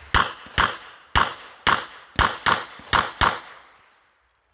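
Revolver fired rapidly during a competition stage: eight sharp shots in about three seconds, roughly two a second, some in quicker pairs.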